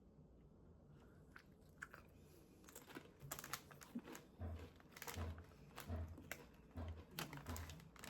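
A person chewing crunchy tortilla chips close to the microphone: after about three seconds of little sound, a run of crisp crunches begins and carries on at a steady chewing pace.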